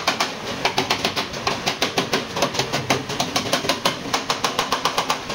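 Hammer striking a steel bar held against a Toyota Vigo pickup's roof pillar in quick, sharp metal-on-metal blows, about six a second, straightening crash damage while a chain puller holds the pillar under tension.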